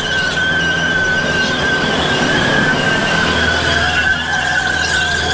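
Compact tractor pulling a drag-strip track-prep rig past, with one steady, slightly wavering high squeal over the low hum of its engine.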